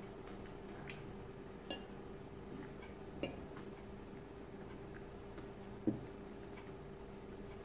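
A fork clinking a few times against a ceramic salad bowl while eating, the loudest clink about six seconds in, over a faint steady hum.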